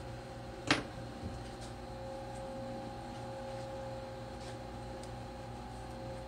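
Steady mechanical hum of running shop equipment, with one sharp click about a second in and a softer tap just after.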